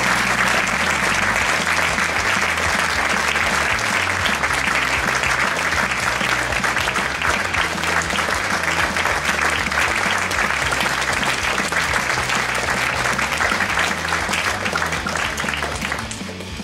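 An audience applauding steadily, with background music underneath; the applause dies down near the end.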